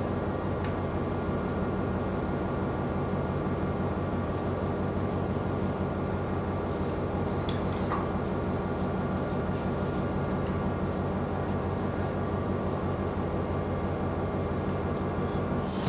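Steady drone of a ship's machinery, a hum holding several even low tones, with a few faint clicks over it.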